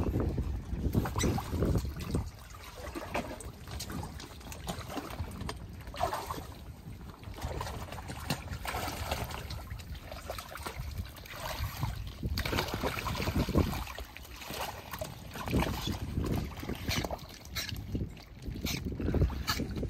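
Water splashing and sloshing unevenly as otters move about in their pool.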